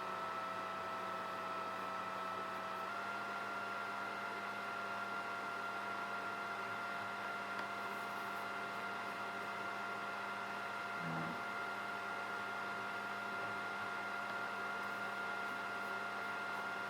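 A kitchen appliance running with a steady hum and a high whine, its pitch stepping up slightly about three seconds in.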